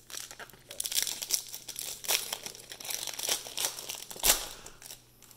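Cellophane wrapper of a football trading-card cello pack crinkling and tearing as it is ripped open by hand: a dense run of crackles, with one louder sharp crackle a little past four seconds in.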